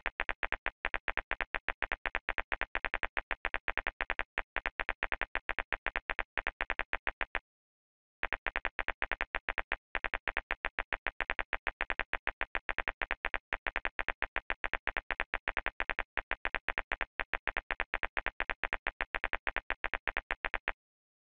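Synthetic laser-firing sound effect of a tattoo-removal laser in an animated simulation: a fast train of identical electronic zaps, several a second. It pauses briefly about seven seconds in, then carries on until shortly before the end.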